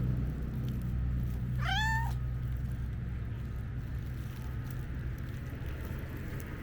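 A domestic cat meows once, about two seconds in: a single short, high meow over a steady low hum.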